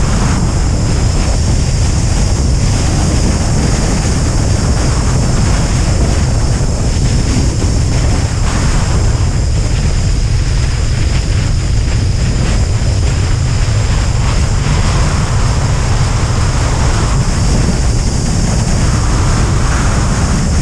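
Airflow rushing past a wing-mounted camera on a Duo Discus glider in flight: loud, steady wind noise on the microphone, mostly a deep rumble.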